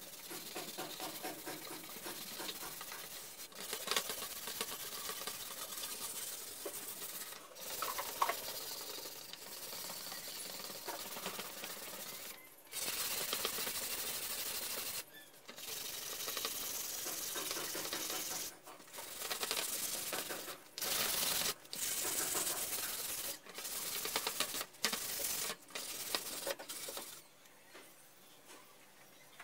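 Wooden picture frame being sanded by hand: rough scratchy strokes in runs of a few seconds with short pauses between them, stopping near the end.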